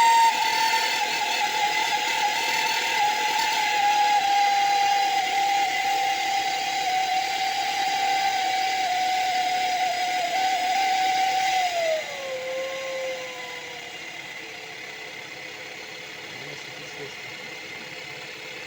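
1.4 TSI engine running with a loud, steady turbocharger whistle that slowly sinks in pitch. About twelve seconds in, the whistle glides down and the engine settles to a quieter idle. A whistle this loud is the sign of a badly worn turbocharger, bad enough that the car can no longer be driven.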